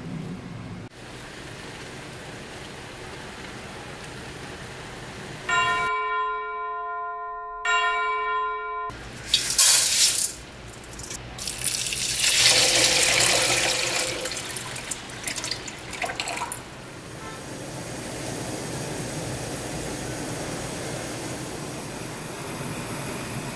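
A pitched electronic tone sounds twice, the second time shorter. Then a stream of water is poured into a wide pan of dry lentils, splashing and rushing for several seconds. It gives way to a steady hiss as the lentils come to the boil over a gas flame.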